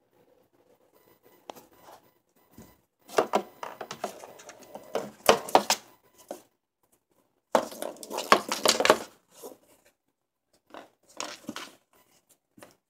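A kitten batting and scrabbling at ping pong balls on the cardboard floor of a box: quick clusters of light clicks, taps and scratching in three spells, the busiest in the middle.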